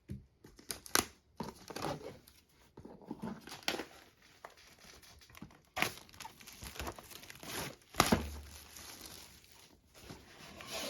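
Plastic shrink wrap on a trading-card box crinkling and tearing as it is pulled off and handled, with a couple of sharper knocks and a dull thud about eight seconds in as the box is handled.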